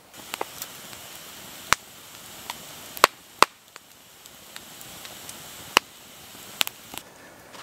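Campfire of split wood burning and crackling, with sharp, irregular pops over a steady soft hiss; the two loudest pops come close together about three seconds in.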